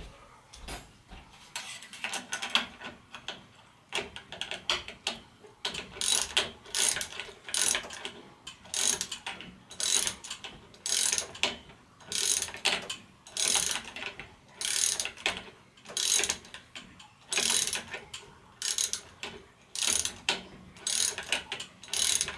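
Socket ratchet wrench clicking in repeated back-and-forth strokes, about one burst of clicks a second, as it tightens a bolt in a bicycle suspension fork through a long extension. The strokes are lighter for the first few seconds, then come strong and regular.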